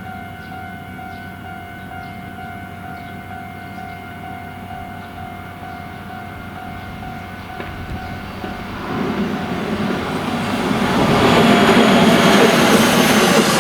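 Japanese level crossing warning bell ringing its repeating "kan-kan" tone, which ends about eight seconds in. A train then approaches and passes, growing loud with rumbling wheel and rail noise.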